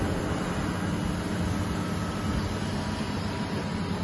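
Steady factory-hall machinery hum: a low drone with an even rushing noise over it, unchanging throughout.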